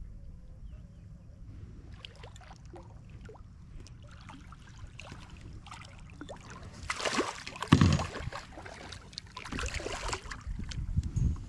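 Water splashing and sloshing beside a boat's hull as a hooked striped bass thrashes at the surface while it is played in, loudest with a heavy splash about eight seconds in and more splashing near the end.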